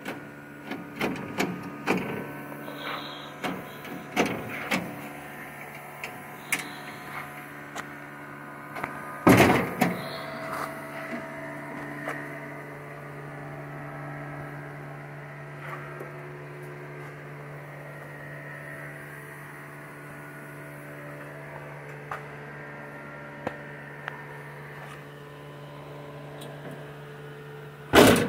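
Shop fan humming steadily under scattered knocks and clanks of hands-on work on the car's body panels. The knocks are bunched in the first ten seconds, with a loud clatter about nine seconds in and another at the very end.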